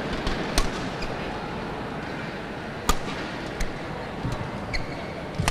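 Badminton rackets striking a shuttlecock in a rally: a series of sharp cracks, the loudest about three seconds in, then several more at shorter gaps. Underneath is the steady hum of the arena crowd.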